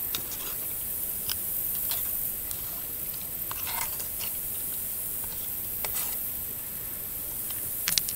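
A plastic fork stirring a creamy mushroom mixture in a small metal pan, giving scattered light clicks and scrapes against the pan, with a longer scrape about halfway and two sharper clicks near the end, over a steady high hiss.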